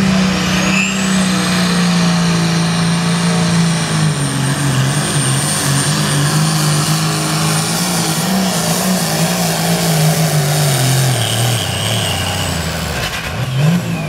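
Turbocharged diesel pulling tractor at full throttle, dragging a weight-transfer sled, with a high turbo whistle over the engine. About four seconds in, the engine note starts sinking steadily as the sled's weight builds and drags it down. It drops away near the end as the pull finishes.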